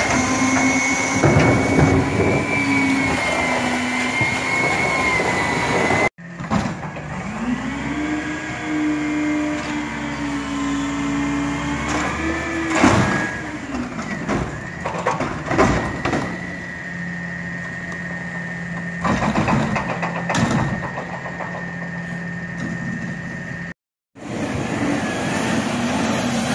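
Automated side-loader garbage trucks at work: diesel engines running and a steady whining hydraulic pump as the arm lifts and dumps a wheeled cart, the whine rising as the arm goes up, with clanks as the cart is shaken out and set down. The sound breaks off abruptly twice, and a street sweeper's engine runs near the end.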